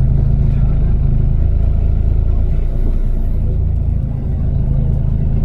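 Steady low rumble of a motor vehicle driving, engine and road noise.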